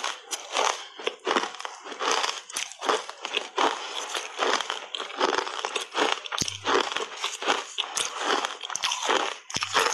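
Close-up crunching and chewing of hard frozen cola ice coated thickly in matcha powder, with irregular crunches several times a second as the ice breaks between the teeth.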